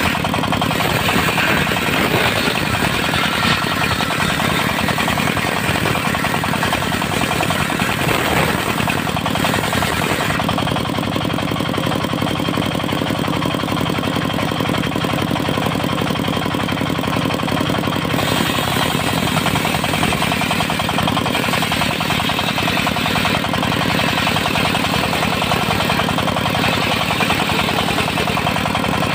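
Diesel engine running a portable circular sawmill, the blade sawing dry teak. The sound is steady and loud, with the higher, harsher part of the noise dropping away for several seconds in the middle and then returning.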